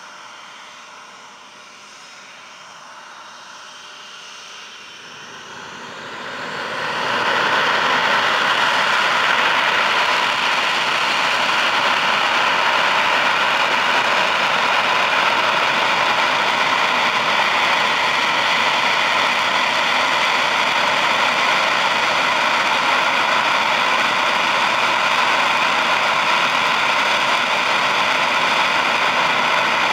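Panavia Tornado's twin RB199 turbofan engines running up on the runway. They start as a quieter jet whine, then rise sharply about six seconds in to loud, steady, high-power jet noise with a strong whine, while the aircraft stands, as it does when held before the take-off run.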